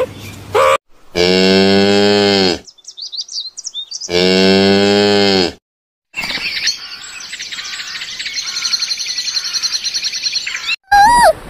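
Two long cow moos, each about a second and a half, the first starting about a second in and the second about four seconds in, with faint high chirps between them. After a brief gap comes several seconds of a high, rapid chirping trill over a hiss, and short sharp calls are heard at the start and near the end.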